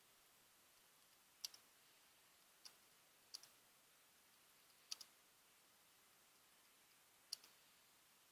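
Faint computer keyboard clicks while text is typed: five separate clicks a second or so apart, a couple of them with a quick second click, over near-silent room tone.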